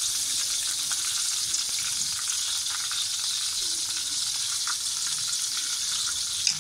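Chopped garlic sizzling in hot cooking oil in a wok: a steady hiss with small crackles.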